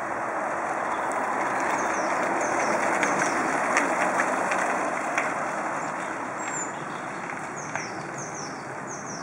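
Two mountain bikes passing close on a gravel path: the tyres' rolling noise swells to a peak about four seconds in, with a few sharp clicks, then fades. Small birds chirp repeatedly in short falling notes.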